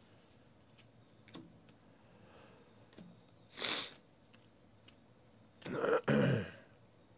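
A man clearing his throat in two short parts near the end, the loudest sound here. Before it come faint clicks of trading cards being handled and shuffled, and a short sharp sniff about three and a half seconds in.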